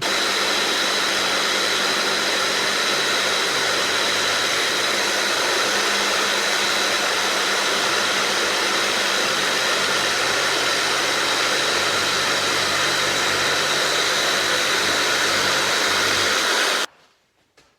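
An electric power tool running steadily at full speed with a high whine, cutting off suddenly near the end.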